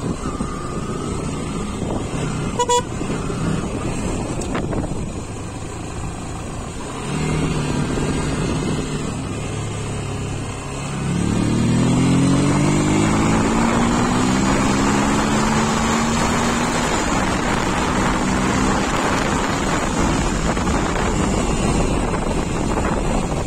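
Onboard sound of a Yamaha Fazer motorcycle engine running on the move, with wind rushing over the microphone. A short horn beep sounds about three seconds in. About eleven seconds in the engine gets louder and its pitch rises as the bike accelerates, then it holds steady at speed.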